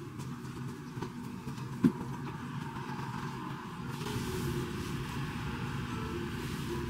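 Steady low room hum, with faint rustling of a large bath towel being shaken out and folded. A single brief low thump sounds just under two seconds in.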